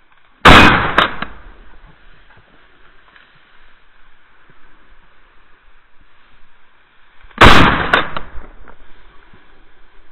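Two shotgun shots about seven seconds apart, each a sharp blast that trails off over about a second.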